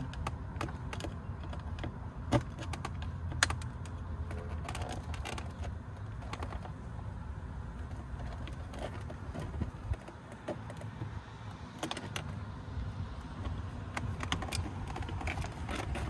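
Irregular light plastic clicks and rattles from a car's interior door trim panel being worked loose at the inside door handle, with two sharper clicks a couple of seconds in.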